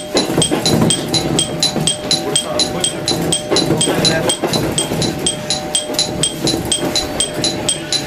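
E233-series train's ATS warning alarm ringing on arrival, a sharp ringing strike repeating evenly about four times a second. Under it is the steady hum and rumble of the moving train.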